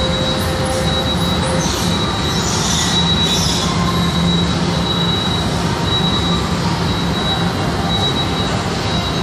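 Moving walkway (travelator) running: a steady mechanical rumble of the moving pallets, with a thin, steady high whine over it.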